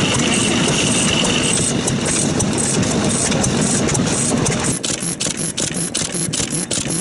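Vintage single-cylinder stationary farm engines running with a dense mechanical clatter. A steady high whine drops out about a second and a half in. Near the end, sharp, even clicking at about five a second comes to the fore.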